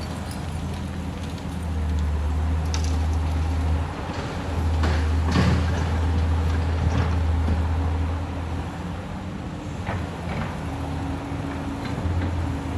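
Excavator engine running with a steady low hum, growing louder for a few seconds at a time as it works, with a few sharp clanks over it.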